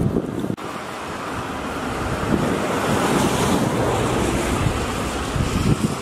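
Wind blowing across the camera microphone: a steady rushing noise with a low rumble that dips briefly about half a second in and then builds again.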